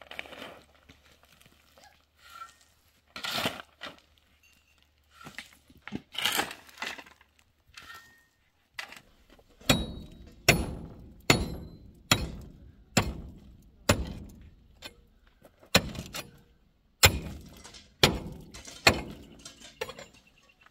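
A few scattered knocks and scrapes, then about halfway through a steady run of sharp hammer blows, a little more than one a second, each ringing briefly, as in building work.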